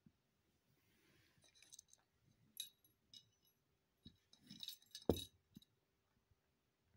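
Small plastic rabbit toy clicking and clinking with a brief high ring as it is handled, in two clusters of taps. The loudest is a click with a soft thump about five seconds in.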